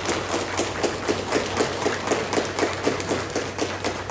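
A group of people clapping: many sharp claps at a fairly even pace of about six a second, over a steady low hum.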